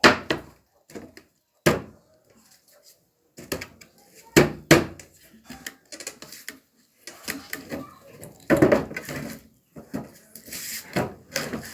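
Irregular wooden knocks, thuds and clatter, as from wooden speaker-cabinet panels being handled and fitted together, with a few rougher scraping stretches in the second half.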